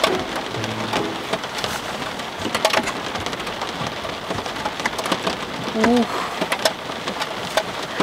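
Heavy rain beating on a Land Rover Discovery 4, heard from inside the car: a dense steady hiss full of sharp drop hits. A brief wavering vocal sound about six seconds in.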